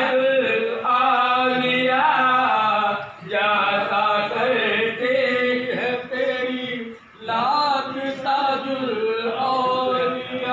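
Male voices chanting a devotional recitation in long, melodic, sustained phrases, with short pauses for breath about three and seven seconds in.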